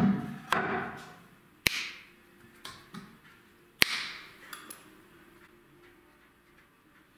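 A heavy wooden board set down on a metal table saw top with a low thump, followed by three sharp taps with a short ring, the loudest about four seconds in.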